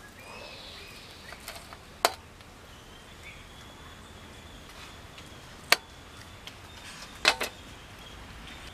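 A table knife clinking against a stainless steel platter as it cuts into a fried cauliflower: four sharp clicks spread over several seconds, the last two close together, over a quiet background.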